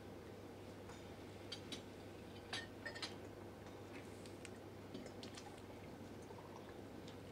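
Quiet room tone with a steady low hum, broken by a few faint scattered clicks and clinks, the loudest about two and a half to three seconds in.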